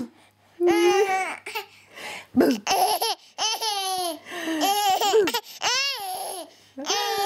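Baby laughing in a string of short, high-pitched bursts with brief pauses between them.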